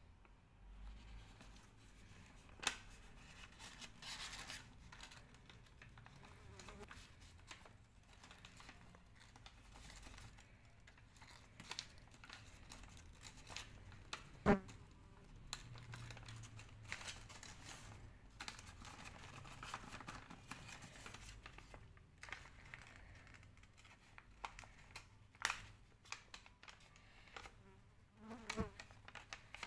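Sheet of paper being folded and creased by hand, with faint rustling and a few sharp taps or clicks, the loudest about halfway through.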